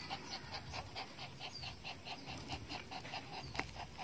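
A small long-haired dog panting fast, about four to five breaths a second, with one sharp click a little before the end.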